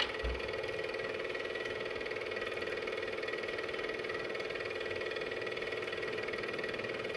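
Film projector running: a steady mechanical whir with a fast, even clatter from the film mechanism.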